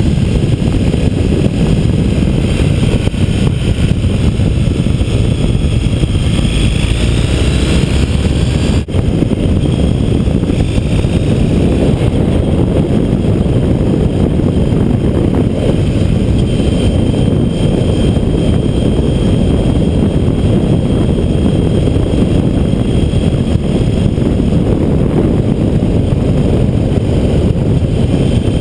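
Loud, steady rumble of wind buffeting the microphone on a moving vehicle, with engine noise underneath.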